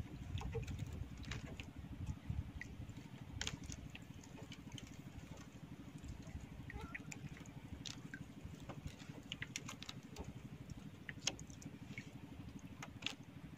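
Steady low hum of a small engine running, with scattered light clicks and taps as a squid jig line is hauled in by hand.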